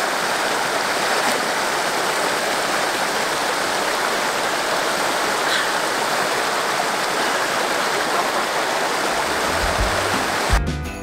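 Steady, unbroken rush of falling water from Crystal Falls on Cascade Creek.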